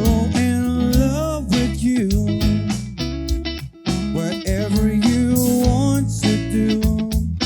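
Band music with guitar: a bending, wavering melody line over steady bass notes, with no sung words.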